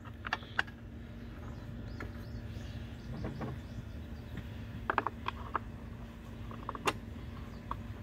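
Small clicks and taps of bolts being set by hand into a Briggs & Stratton push mower's plastic recoil starter cover, with a quick cluster of clicks about five seconds in and a sharper click a couple of seconds later.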